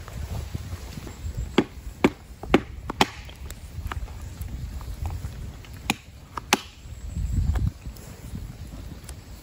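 Hatchet chopping wood on a log: four sharp knocks about half a second apart, then two more a few seconds later, over a low rumble.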